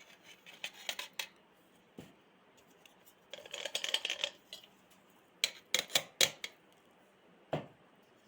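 A spoon scraping ground spice powder out of a mixer-grinder jar, with a spell of scraping about three and a half seconds in and a quick run of sharp taps on the jar about two seconds later.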